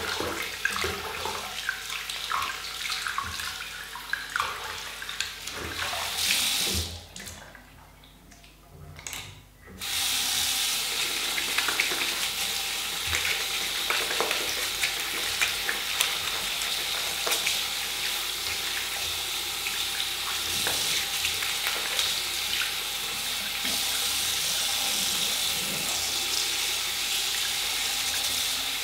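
Bathroom sink tap running, with water splashing as shaving lather is rinsed off the face. The water stops for about three seconds some seven seconds in, then the tap runs steadily again.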